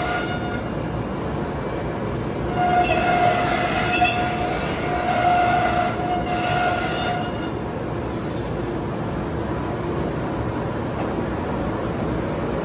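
Thermwood CS45 CNC router spindle (10 HP) cutting sheet stock on the table: a high pitched whine with overtones comes and goes in stretches through the first seven seconds, over a steady rushing drone that continues after the whine stops.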